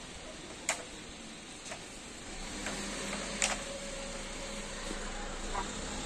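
A few sharp taps: a parrot's beak striking a plastic toy crane truck, the clearest about a second in and again midway, with fainter taps between.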